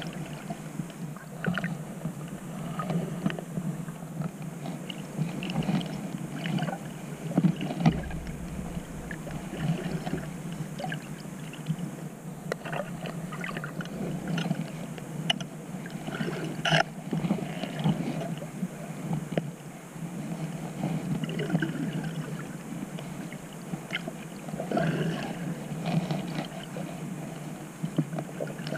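Underwater sound picked up by a camera below the sea's surface: a low wash of moving seawater that swells and eases every few seconds, with scattered small clicks and ticks.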